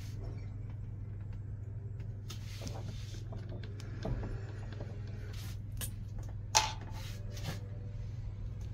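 Handling noise of a steel rebar piece being offered up to a lathe's chuck: several light metallic clinks and knocks, the loudest about two-thirds of the way through, over a steady low hum.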